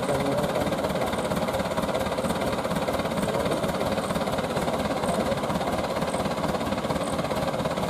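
An engine idling steadily with a fast, even pulse.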